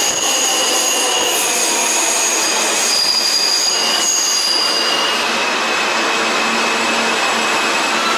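New York City subway train running through a station, its steel wheels squealing on the rails in several high, steady tones over a continuous rushing noise. The squeal fades about five seconds in, leaving the rushing noise.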